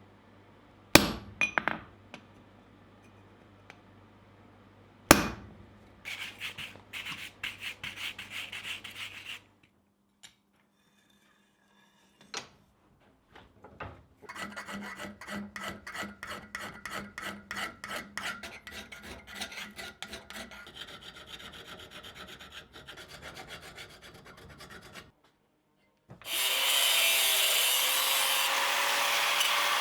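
A hand file rasping on steel in quick, repeated strokes, with two sharp knocks in the first few seconds. Near the end, a loud, steady rushing noise runs for about three seconds and stops abruptly.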